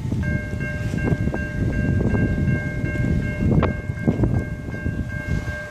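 Air horn of an approaching diesel freight locomotive sounding a long, steady chord of several notes that breaks off briefly near the end, over a low rumble of wind on the microphone.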